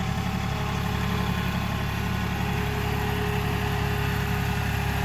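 John Deere 3032E compact tractor's three-cylinder diesel engine running at a steady pace, a constant low hum.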